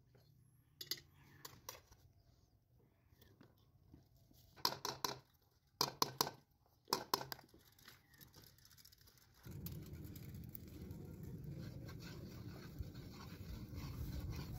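Plastic bag crinkling and rustling in short bursts as it is handled, alongside light scraping of a metal sieve and bowl. A little over halfway through, a steady low rumble sets in and runs on.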